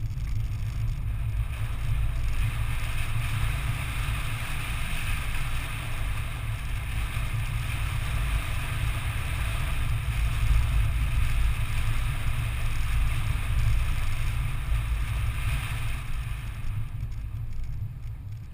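Toyota 4Runner driving on a dirt trail: a steady low rumble of engine and tyres, with a hiss from the ground. The hiss dies away near the end.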